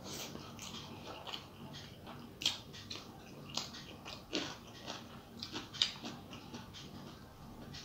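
A person chewing rice and curry with wet mouth smacks, while fingers mix rice on a steel plate; a string of irregular short clicks and smacks.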